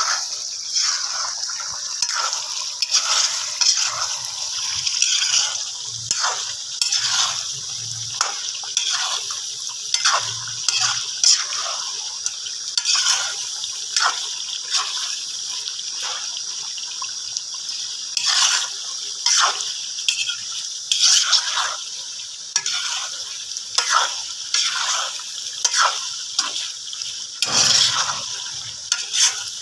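Chicken pieces sizzling in hot oil in a karahi, with a steady hiss. A metal spoon stirs and scrapes against the pan in irregular strokes, roughly one a second.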